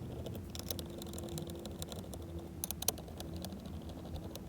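Light, irregular clicks and taps of a Phillips screwdriver working screws out of a steering column, with a small cluster of clicks a little before the three-second mark.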